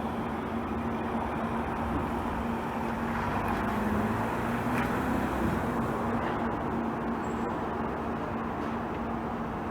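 Steady mechanical running noise with a constant low hum, swelling slightly around the middle.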